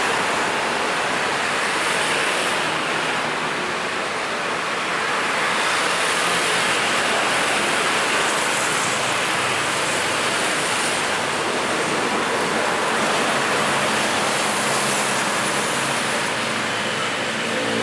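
Steady roar of road traffic: a continuous wash of engine and tyre noise from passing vehicles, with no single vehicle standing out.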